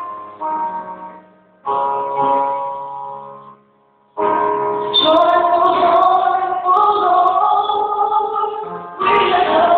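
Recorded music: sustained keyboard-like chords that break off and start afresh several times, with a near-silent gap just before the fourth second, then a woman's singing voice entering about five seconds in over the accompaniment.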